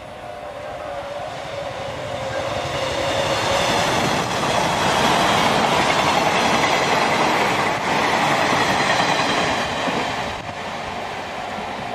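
Electric limited express train passing close by, its wheels clattering over the rail joints. The noise builds to a peak as the cars go past, then drops suddenly about ten seconds in.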